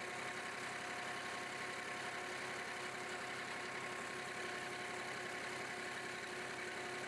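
Massey Ferguson 2605 tractor engine idling steadily, with a constant whine over the low running rhythm.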